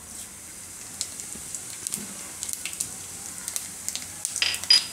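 Cumin seeds frying in hot oil in a kadhai: a steady faint sizzle with scattered small crackles and pops. Near the end come a couple of louder sharp clicks with a brief ringing tone.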